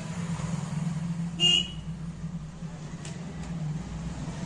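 A steady low hum, with one short, loud pitched beep about a second and a half in, and two faint ticks near the three-second mark.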